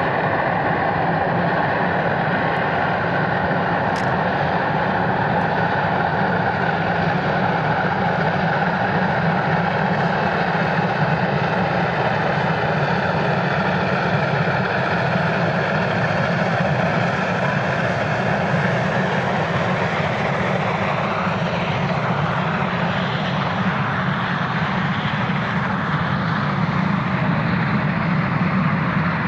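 Two three-cylinder 2-10-0 steam locomotives, 58 1111 and 44 1093, working hard at the head of a fully loaded freight train on the climb, their exhaust beats merging into a loud, steady roar. Near the end the locomotives have passed and the freight wagons roll by.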